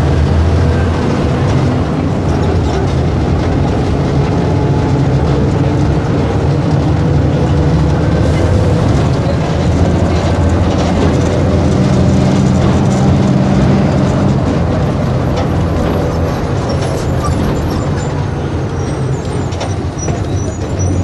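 Diesel engine of a Volkswagen 17.230 EOD city bus running steadily under way, a deep drone whose pitch wavers slightly. Faint high-pitched ticks and rattles join in the later part.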